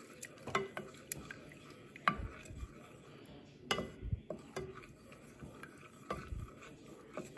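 A wooden spoon stirring milk into a butter-and-flour roux in a stainless steel saucepan, scraping and knocking lightly and irregularly against the pan as the sauce thickens.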